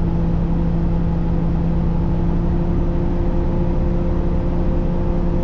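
Semi-truck diesel engine heard from inside the cab, held at raised RPM and running steadily with a constant hum while the air compressor builds air-brake pressure toward governor cutoff.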